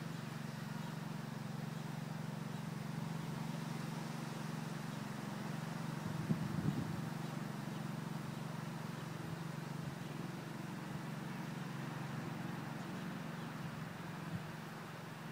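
A steady low engine drone running evenly, with a short cluster of thumps about six seconds in.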